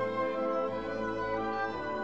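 Slow orchestral background music with long held notes.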